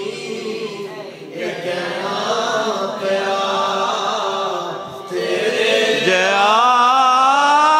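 A man singing a Punjabi naat into a microphone with no instruments, drawing out long melismatic notes without clear words. He grows louder about five seconds in as his line rises in pitch.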